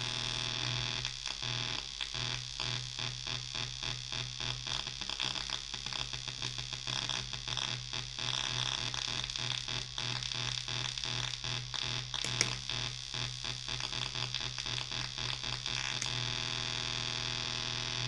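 Homemade Muscarin analog drone synthesizer sounding a dense buzzing tone with many overtones. From about a second in its LFO modulates the oscillators, chopping the drone into an even pulsing of a few beats a second, which smooths out again near the end.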